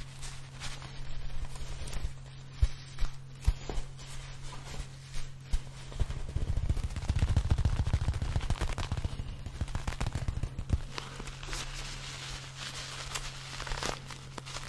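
Hands handling small plush toys right at a microphone: scattered sharp taps and knocks, then a dense run of rapid crackling rubs and squeezes in the middle, easing off to softer handling. A steady low hum runs underneath.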